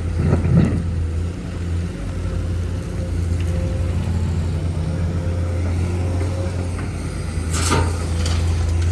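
Heavy diesel engine of road-construction machinery running at a steady low drone, with a short sharp burst of sound about three-quarters of the way through.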